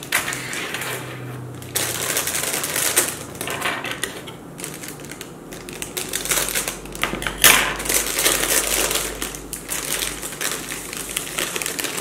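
Plastic zip-top bag of dried red chili peppers crinkling and rustling as it is opened and handled, with dense, rapid crackling clicks.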